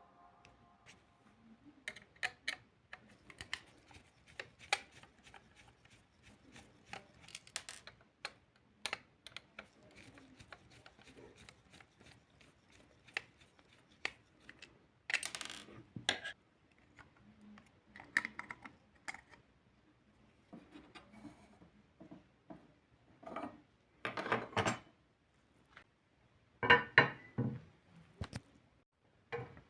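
Hand work on a toy car: small hard parts clicking, tapping and scraping, with louder rattling clatters near the middle and again near the end.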